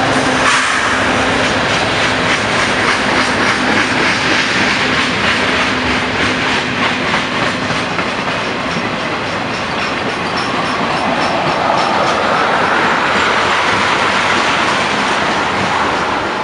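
Freight train passing close by. The Canadian Pacific diesel-electric locomotive's engine hum fades over the first half, under the steady rumble and clickety-clack of tank cars and covered hopper cars rolling over the rail joints. A faint high-pitched wheel squeal comes in around the middle.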